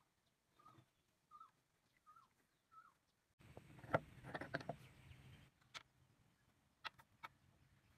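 Faint bird chirps, four short falling notes spaced a little under a second apart. After that come handling noises as wooden model-tractor parts are moved about and set down on a wooden workbench, with a few light wooden knocks near the end.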